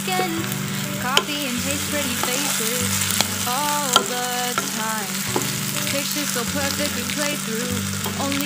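Eggplant, shallots and chili stir-frying in oil in a nonstick wok: steady sizzling, with a wooden spatula scraping the pan and knocking it sharply a few times.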